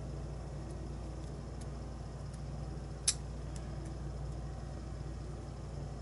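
A few faint ticks and one sharp click about three seconds in: a pin stack being shaken out of a brass lock plug and set down on a plastic pin tray. A steady low hum runs underneath.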